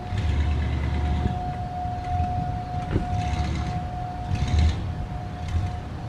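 American Signal RM-130 rotating single-tone siren sounding its steady full-alert tone: the pitch holds level while the loudness swells and fades as the horn turns. Wind rumbles and gusts on the microphone underneath.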